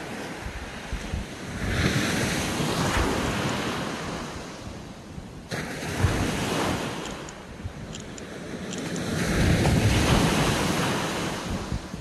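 Small waves breaking and washing up a sandy beach. The hiss of surf swells and falls back three times, the loudest surge near the end.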